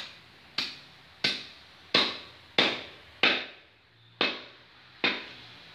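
Heavy cleaver chopping through goat ribs on a wooden tree-stump block: eight sharp chops, about one every two-thirds of a second, with a slightly longer pause before the last two.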